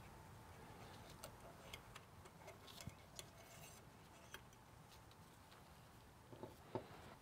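Near silence broken by faint, scattered clicks and ticks of the Turbo Trusser's metal wire hooks and frame being handled with gloved hands while hooking a chicken's wing.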